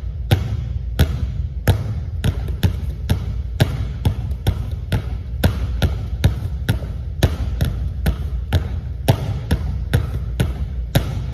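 Two basketballs bouncing on a hardwood gym floor in a two-ball dribbling drill, about two to three bounces a second in a slightly uneven rhythm, over a steady low hum.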